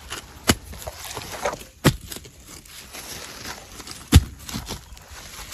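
A small hand digging tool strikes into the soil three times, the last the loudest, with scraping and rustling of dirt and pine needles between the strikes as mushrooms are dug out of the ground.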